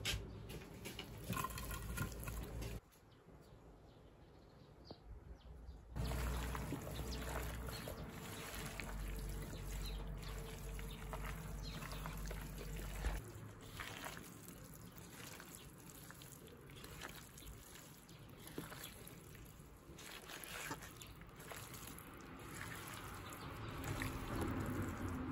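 Gloved hands mixing pieces of raw flounder and radish strips with chili, millet rice and seasonings in a large bowl: soft, wet squishing and rustling, with a quieter break about three seconds in.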